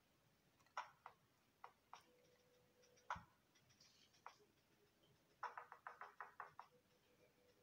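Faint, sharp clicks from a stainless steel Casio Edifice EQB-1000D wristwatch being handled: scattered single clicks, one louder click with a knock about three seconds in, then a quick run of about ten clicks near the end.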